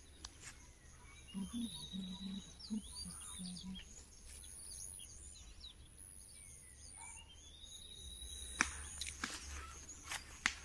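Birds singing: many short chirps and two rising whistled calls, one about a second and a half in and one about seven seconds in, over a steady high-pitched tone, with a few sharp clicks near the end.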